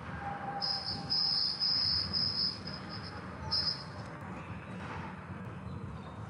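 High-pitched electronic beeps at one steady pitch: a quick string of short beeps for about two seconds, then one more brief beep. Under them is a low, steady hall hum.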